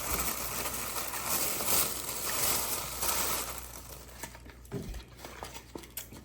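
Crispy fried chicken being crunched: a dense crackling for about the first three and a half seconds, then fainter scattered clicks.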